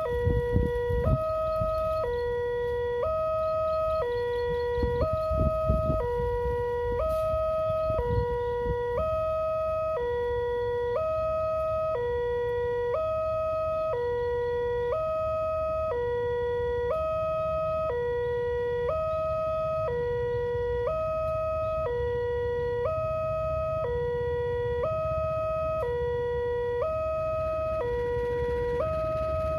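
Electronic two-tone warning alarm of an Indonesian railway level crossing, switching between a lower and a higher tone about once a second, signalling that a train is approaching while the barrier is down. A low rumble runs underneath and swells briefly twice in the first six seconds.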